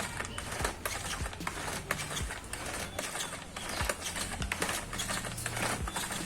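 Irregular clicks and light clatter of hard plastic parts being handled, many in quick uneven succession.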